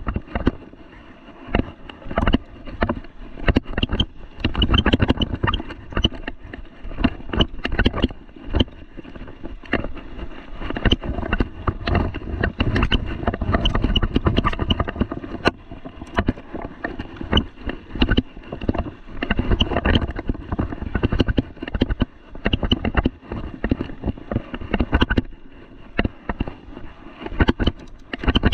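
Mountain bike riding over a dirt and gravel trail: the bike rattles and knocks irregularly over bumps as the tyres roll on the dirt, with wind rumbling on the handlebar-mounted camera.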